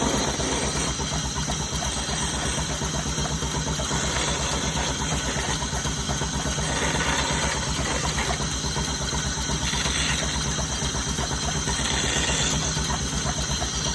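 A machine motor running steadily with a fast, even low throb and a constant hiss above it.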